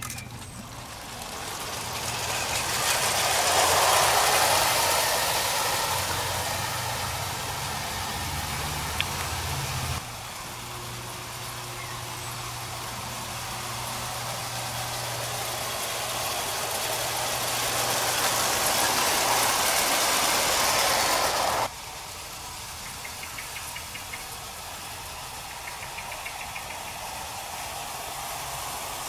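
Two Hornby O gauge clockwork 0-4-0 locomotives, a tank engine and a tender engine, running double-headed with a goods train on tinplate track. Their spring-driven clockwork motors whir and the wheels and wagons clatter on the rails, getting louder and softer as the train passes.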